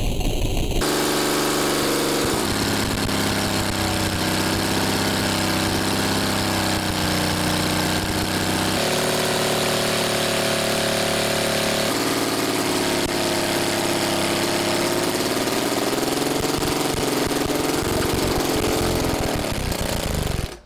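Homemade gasoline engine built from a car compressor running steadily, its pitch wavering. Its speed falls away near the end.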